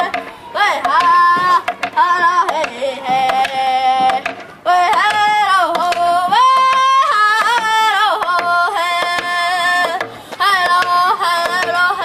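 A boy singing a hand-drum song in a high voice, in short phrases, while beating a steady rhythm on a frame hand drum.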